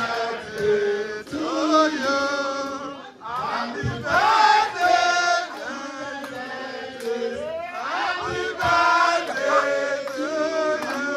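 A man chanting a song into a microphone, amplified, with other voices singing along in phrases.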